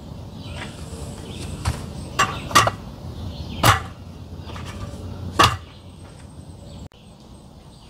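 Aluminium slats of a roll-top camp table clacking and knocking as the tabletop is pressed into its folding frame: a handful of sharp knocks, the three loudest a second or more apart.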